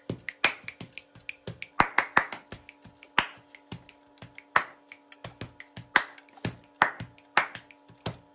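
Hand ratchet clicking in quick, irregular strokes, several a second, as bolts on a bicycle's rear disc-brake mount and axle are tightened.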